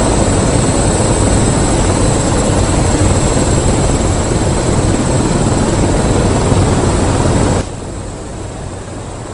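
Loud, steady rushing engine noise of the kind an aircraft or helicopter makes, with a thin high whine over it. It drops abruptly to a lower level near the end.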